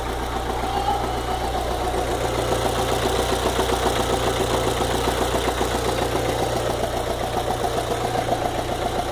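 VW Fox engine idling with a rapid, even tick-tick knock. The owner says the noise is absent when the engine is cold and comes back once it is hot.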